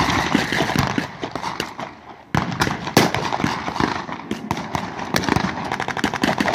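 Rapid small-arms blank fire from World War II–style rifles in a reenactment skirmish: many sharp shots in quick, overlapping succession. The firing eases about two seconds in, then resumes with a loud shot and continues.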